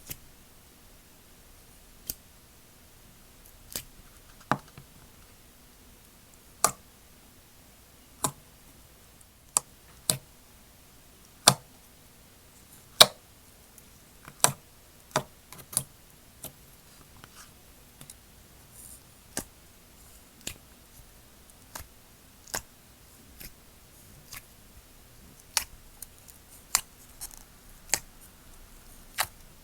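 Slime being handled and pressed, giving sharp pops and clicks at an irregular pace of roughly one a second.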